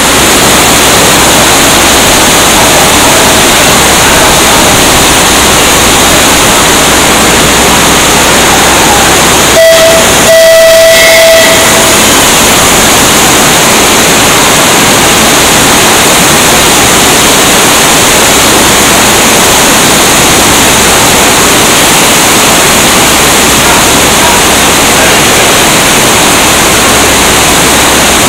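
Heavy rain pouring down on the station platform and its canopy roof, a loud, unbroken hiss. About ten seconds in a short, single-pitched horn blast sounds for a second or so.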